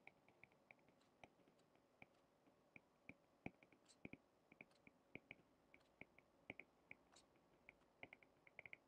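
Faint, irregular light ticks of a stylus tapping and stroking a tablet screen while handwriting, a few ticks a second.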